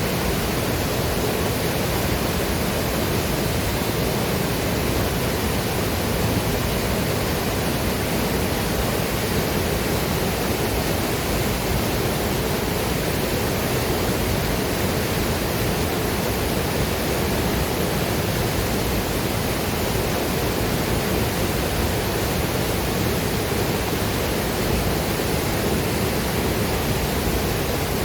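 Waterfall and river water rushing in a steady, even roar of white noise, unchanging throughout.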